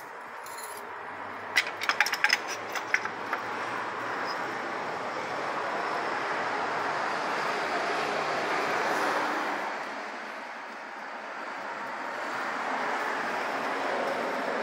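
A quick run of light metal clinks about two seconds in, as oily engine bearing caps and parts are handled. Then a steady rushing noise swells, fades, and swells again near the end.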